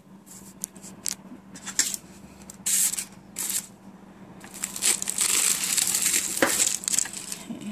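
A kitchen knife cutting through a crisp, flaky puff pastry pie crust, which crackles and crunches. There are a few short crunches at first, then steady crunching for the last three seconds or so as the blade saws through.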